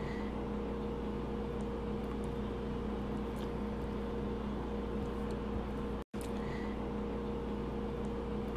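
A steady machine hum with two held tones, one low and one in the middle range, over a hiss; it drops out for an instant about six seconds in and comes straight back.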